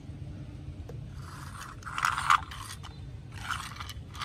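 A small die-cast toy bus pushed by hand across rough concrete: its little wheels roll and scrape with a gritty, ratcheting rattle, in three short bursts.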